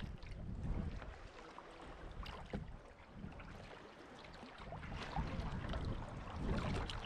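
Kayak paddle strokes dipping and splashing in the water, with small splashes around the hull. Wind buffets the deck-mounted microphone; the rumble eases in the middle and picks up again about five seconds in.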